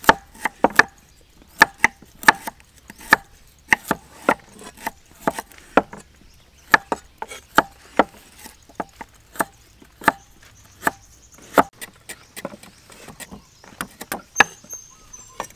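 Steel cleaver chopping down through a root onto a thick wooden chopping block: a string of sharp, irregular knocks, about two to three a second with short pauses.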